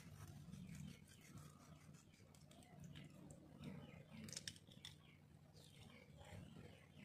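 Near silence: faint room tone with a few soft scattered clicks, the sharpest about four and a half seconds in.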